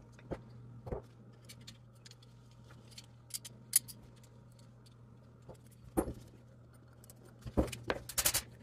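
Small metal carburetor parts, linkage springs and screws clicking and clinking on a workbench as they are handled and fitted, with a short rattling cluster of clicks near the end, over a steady low hum.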